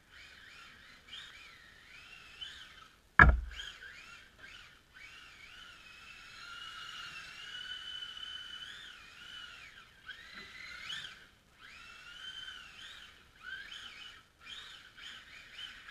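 Electric motor and drivetrain of a Tamiya TT-01 1:10 RC drift car whining, its pitch gliding up and down and breaking off now and then. A single sharp knock about three seconds in is the loudest sound.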